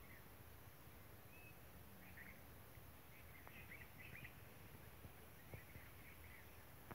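Near silence outdoors, with faint short bird chirps coming in a few small clusters and a couple of faint ticks.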